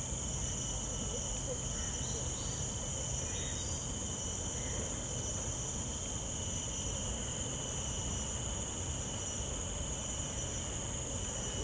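Steady chorus of insects, crickets among them, chirring without a break at two high pitches. A few faint short calls sound in its first few seconds.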